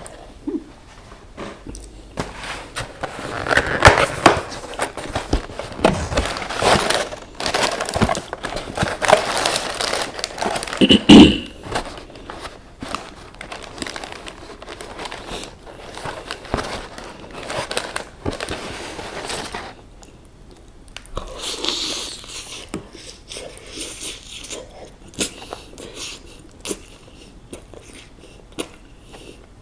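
Crispy KFC fried chicken being bitten and chewed close to the microphone: crackly crunching with many sharp clicks, busiest in the first half, with one loudest crunch about eleven seconds in.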